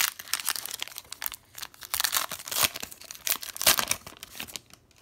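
A 2020 Bowman baseball card pack's plastic wrapper being torn open and crinkled: a run of irregular crackles, loudest about three and a half seconds in, stopping just before the end.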